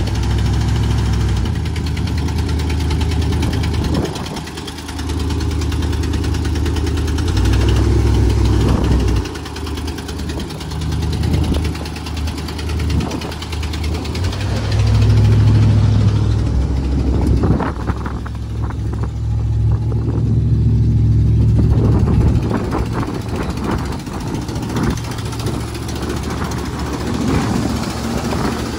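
A 1975 Ford F350 pickup's engine idles steadily and gets louder for a few seconds at a time, several times.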